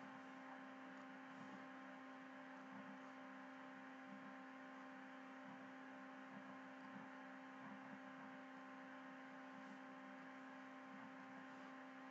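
Near silence: a steady faint electrical hum with light hiss in the recording.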